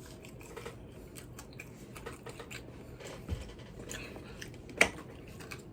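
Close-up chewing of crispy fried chicken tenders: a run of small crunches and wet mouth clicks, with one sharper click about five seconds in.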